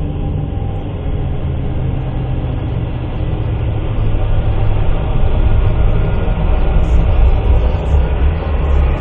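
Dark, industrial synthesizer film score: a heavy, low rumbling drone with a grinding, machine-like texture, growing louder about four seconds in.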